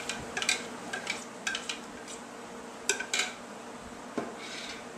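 A spoon clinking and scraping against a bowl in short, irregular taps while chipotle peppers are worked into sour cream. The taps cluster in the first three seconds or so, with a single duller knock about four seconds in.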